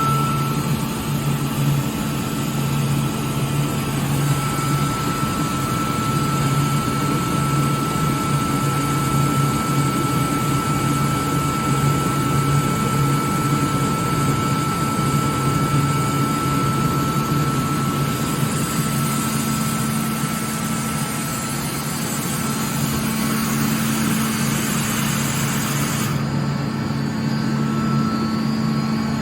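Atlas Copco GA11 FF direct-drive screw air compressor running under load with a steady low hum and a high whine, while compressed air hisses out through an opened valve. The highest part of the hiss cuts off suddenly about 26 seconds in.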